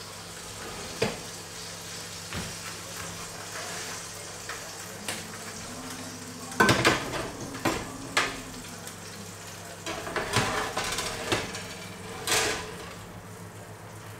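Metal roasting trays and oven racks clanking and scraping as pans are moved around and a tray is slid into a hot oven, with a steady sizzle of roasting fat underneath. The loudest clatter comes about six and a half seconds in, with scattered knocks before and after.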